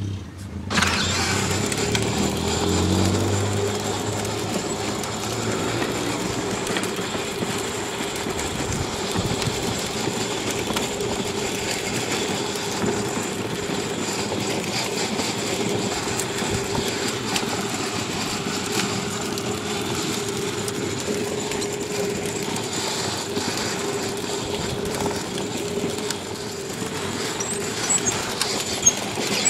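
Child's battery-powered ride-on toy car driving along, its electric motor giving a steady whine over the rough rolling noise of its plastic wheels on pavement. The sound starts about a second in.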